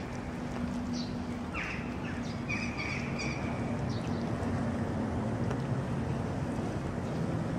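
Small birds chirping in short high notes and quick falling calls, mostly in the first half, over a steady low mechanical hum.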